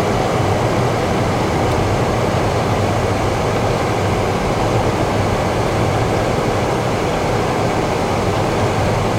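Steady cabin noise of a car driving: a constant low hum under an even rushing noise, with no changes.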